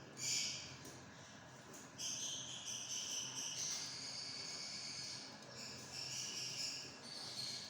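A small bird calling: one short high chirp just after the start, then from about two seconds in a continuous high twittering that steps between pitches.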